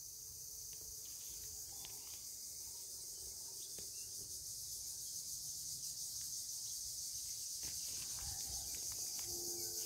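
Steady high-pitched chorus of insects chirring, growing slightly louder, over a faint low rumble.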